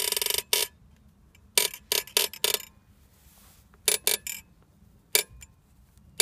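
Hand tools on engine mount bolts: a ratchet wrench clicking fast for a moment at the start, then short sharp metallic clicks and clinks of a socket and beam-type torque wrench being fitted and worked. The clicks come bunched between about one and a half and two and a half seconds in, and again around four seconds in.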